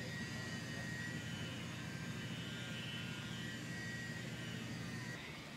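A steady mechanical drone with a low hum and a faint high whine, which changes abruptly near the end.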